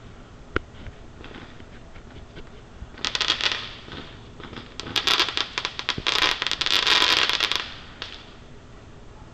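Fireworks: a single sharp pop about half a second in, then aerial firework crackle, many rapid small pops, in a short spell about three seconds in and a longer, louder spell from about five seconds to nearly eight.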